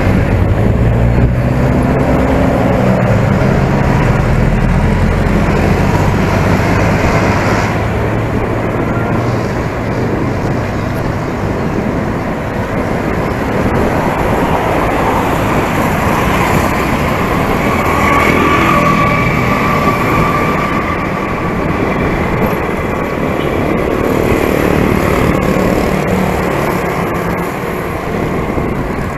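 Road traffic heard from a moving bicycle on a city street, with the engine of a nearby vehicle running close by for the first several seconds. A brief steady whine comes about two-thirds of the way in.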